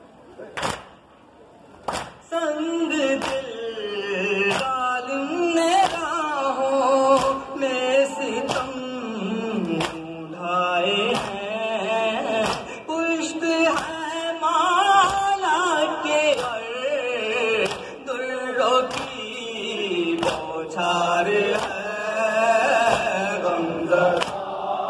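A male voice chanting a noha (Shia lament) into a microphone, over the rhythmic slaps of hands beating on chests in matam, about one to two strokes a second. For about the first two seconds only the chest-beating is heard, then the chanting comes in and carries on.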